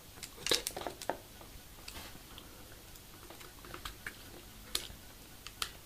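Scattered light clicks and taps of small model-kit parts and a screwdriver being handled, a cluster in the first second and then a few isolated ticks.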